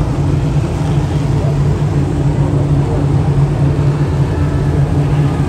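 Dirt modified race cars' V8 engines running together in a loud, steady, unbroken drone.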